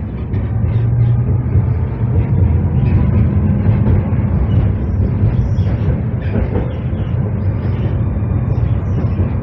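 Steady low rumble of a Tatra KT3UA articulated tram running at speed along its track, heard from inside the passenger saloon.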